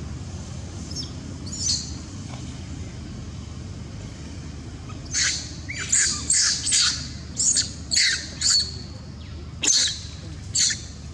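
A long-tailed macaque screaming in distress as another macaque attacks and pins it: two faint cries early on, then from about five seconds in a quick run of about nine short, shrill squeals, some falling in pitch.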